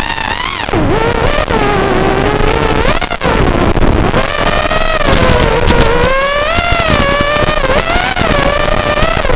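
Whine of an FPV racing quadcopter's brushless motors (Racerstar BR2205 2300KV) and three-blade 5-inch props. The pitch swings up and down again and again as the throttle changes, over a steady hiss.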